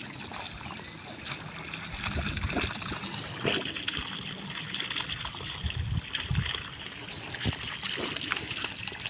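Water trickling and gurgling, a steady wash with scattered light knocks and low thumps through it.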